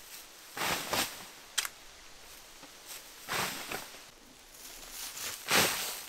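Shovel scooping sandy soil and throwing it onto the dugout's tarp-covered roof: three shovelfuls about two and a half seconds apart, each a gritty scrape and spatter of sand, the last the loudest, with a sharp tick of the blade in between.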